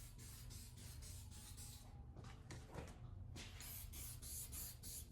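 Faint, quick strokes of lacquer being applied to a cherry board, about four or five hissy strokes a second, with short breaks about two and three seconds in.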